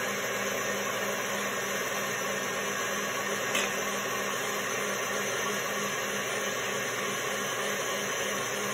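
Electric stand mixer running with its wire whisk, beating egg whites and sugar into meringue: a steady motor whir with a low hum, and one light click about three and a half seconds in.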